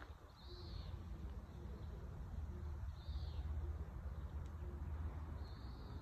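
Birds calling: a short high call repeats three times, about two and a half seconds apart, over a steady low rumble.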